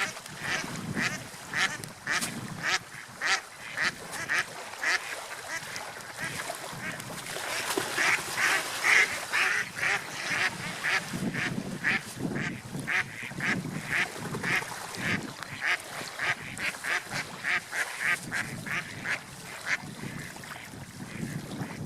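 Ducks quacking in a long run of short, rapid calls, with a busier, louder stretch about eight seconds in where several birds call at once.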